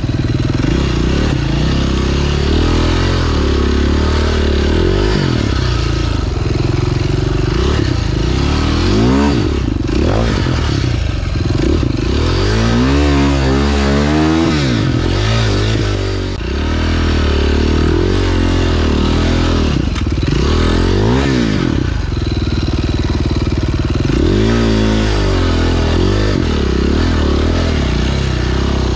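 A 2009 KTM 530 EXC's single-cylinder four-stroke engine being ridden on a dirt trail, the revs rising and falling over and over as the throttle is worked, with several quick swings in a row about halfway through. Clatter from the bike and a steady rush of noise run over the engine.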